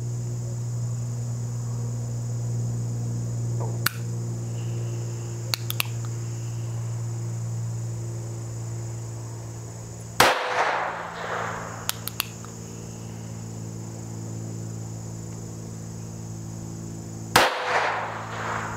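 North American Arms 22S mini revolver firing two .22 Short rounds about seven seconds apart, each a sharp crack with a short ringing tail. Small metallic clicks of the single-action hammer being cocked and dropped come between the shots; the gun has been giving light primer strikes, so some rounds are being struck a second time. A steady chorus of crickets runs underneath.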